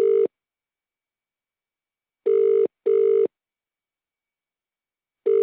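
British telephone ringing tone heard by the caller down the line: the double 'brr-brr' cadence of two short steady tones with a pause between pairs, repeating about every three seconds while the call rings out unanswered.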